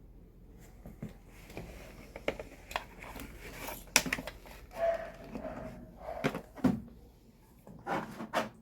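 Hand tools being handled and set down: irregular clicks, taps and knocks, with sharper knocks about four seconds in and again between six and seven seconds.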